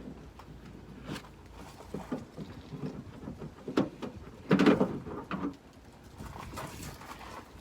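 Scattered small plastic clicks, knocks and scrapes of hands prying the wiring connector off a liftgate switch, with a louder rattling cluster a little past halfway.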